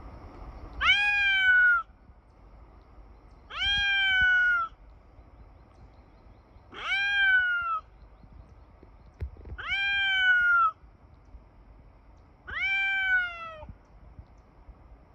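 Domestic cat meowing five times, long drawn-out meows about every three seconds, each rising quickly and then sliding down in pitch.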